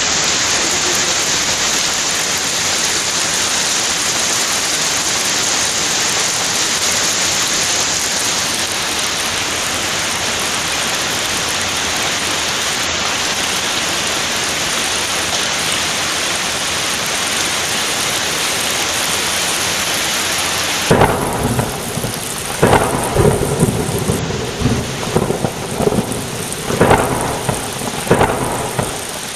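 Heavy rain falling in a steady hiss. From about 21 seconds in, repeated rumbles of thunder roll over the rain.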